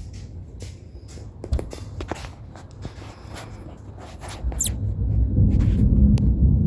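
Light scattered clicks and taps, then about four and a half seconds in a deep rumble of thunder builds up and grows loud, still rolling at the end.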